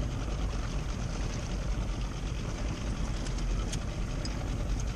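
Steady low rumble and hiss of a small fishing boat under way on open water, with wind on the microphone; no distinct events stand out.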